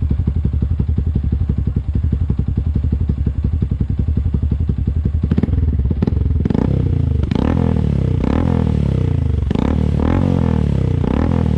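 A Yamaha Sniper 150's single-cylinder engine running through an open Exos R6 aftermarket exhaust with no silencer. It idles steadily, then about five seconds in it is revved in a series of quick throttle blips, about one a second.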